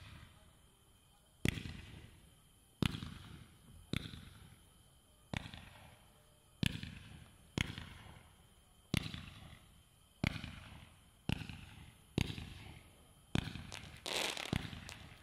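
Blackmail 20-shot 200 g consumer firework cake firing its tubes in sequence: a sharp shot about every second and a bit, each trailing off. Near the end the shots come faster and run together into a denser burst.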